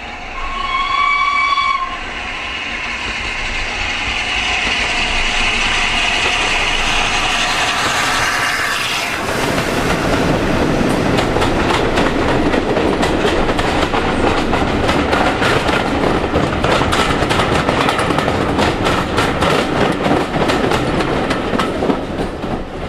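A steam locomotive sounds its whistle once, a single high note for just over a second. Its running noise then builds as it approaches and passes under the bridge. A rake of coaches follows, rattling over the rail joints in a fast clickety-clack that fades near the end.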